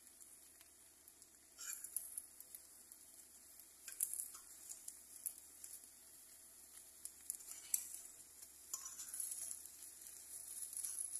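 Eggs sizzling faintly in a frying pan, with a metal fork clicking and scraping against the pan now and then as the eggs are broken up and turned.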